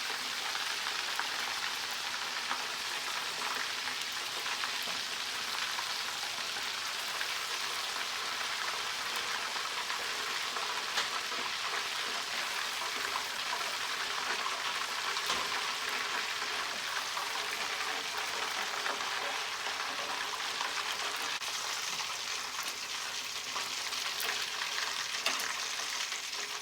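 Chicken pieces frying in hot oil: a steady sizzle with scattered crackles and pops.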